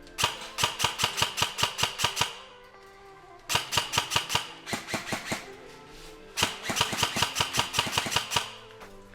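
Airsoft electric rifle (AEG) firing three strings of rapid shots, about five or six a second, each string lasting about two seconds.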